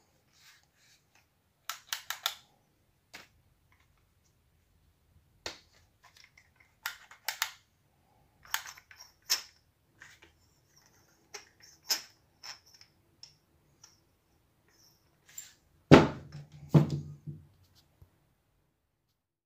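Handling noise from two plastic-bodied Celma electric drills: scattered clicks, knocks and rattles as they are turned over in the hands, then two heavy thuds near the end as they are set down on the table.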